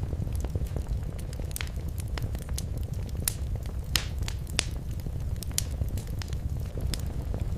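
Wood fire burning in a fireplace: a steady low rumble of the flames with irregular crackles and sharp pops, a few louder pops near the middle.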